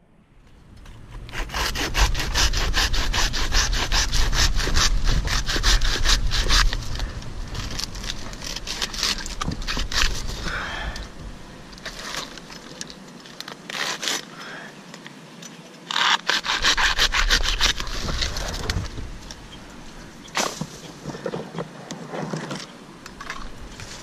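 Hand pruning saw cutting through palm wood in fast back-and-forth strokes: one long bout of several seconds near the start and a shorter one a little after the middle, with lighter rubbing and scraping strokes in between.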